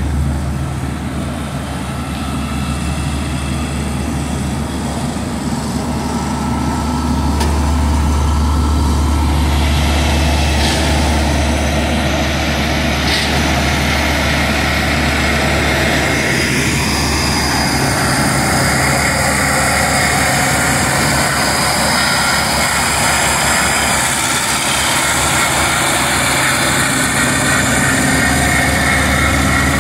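Heavy diesel engines of asphalt-paving machinery running steadily: an asphalt paver with a dump truck beside it, then, after a change a little past halfway, a Dynapac road roller's engine.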